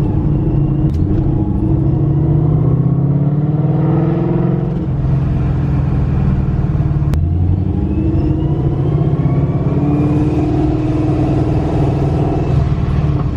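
Supercharged Coyote 5.0 V8 pulling a car along under light throttle, its pitch rising through one gear, dropping, then rising again through the next before easing off near the end.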